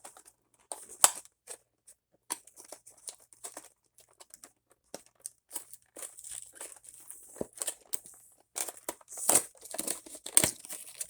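Plastic packaging crinkling and tearing as a Heroclix booster pack is opened by hand, with scattered sharp clicks of the plastic being handled; the sharpest click comes about a second in.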